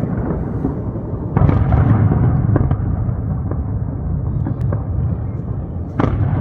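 Aerial fireworks going off: a steady low rumble of bursts, with two heavier booms about a second and a half in and near the end, and sharp crackling pops scattered between.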